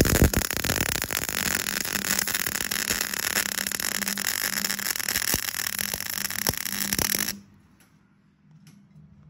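MIG welder arc crackling steadily while a seam weld is run around a steel exhaust pipe joint, cutting off suddenly about seven seconds in.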